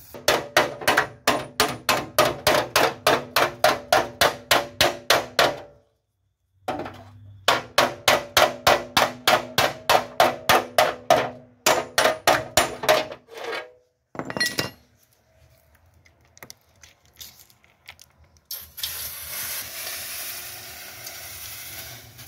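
Hand hammer beating the steel front inner wing panel of a car under repair, with metal ringing on each blow: two fast runs of about four or five blows a second, each lasting about five seconds with a short pause between, then a few single knocks. Near the end a steady hiss sets in.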